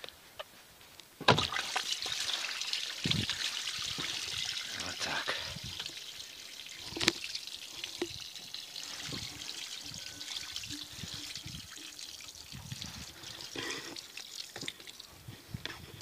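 Water running out of the opened filter on a tractor-mounted sprayer's pump and splashing onto the soil. It starts with a sudden gush about a second in, then eases to a steady trickle. This is the sprayer being drained of water for winter.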